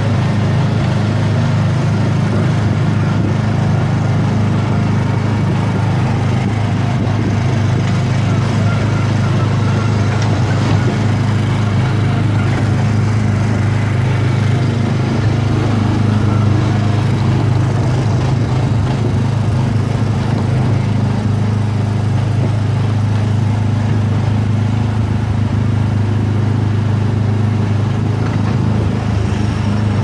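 Small gasoline engine of an Autopia ride car running steadily as the car drives along, heard up close from a mount on the car, as an even, unbroken drone.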